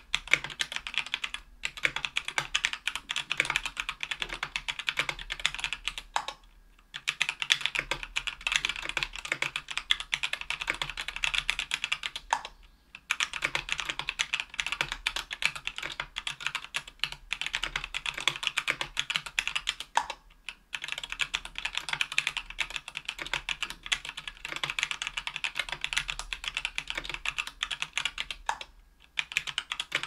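Fast continuous typing on a mechanical keyboard with lubed Zealios V2 62g tactile switches, in an aluminium KBDfans Tofu 60% case with an aluminium plate and GMK keycaps. It is a dense run of keystroke clacks, broken by a few brief pauses.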